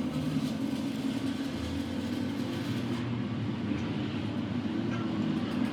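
Machinery running steadily with a low rumble and a few faint clicks.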